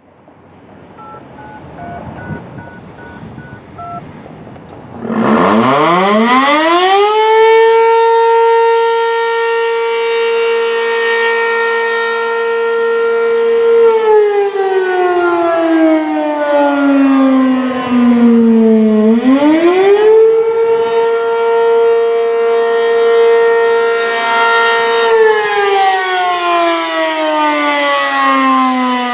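ACA P-15 outdoor warning siren sounding the attack signal on its monthly test. About five seconds in it winds up to a steady high tone and holds it. It then slides down in pitch and rises again in slow, repeating swings.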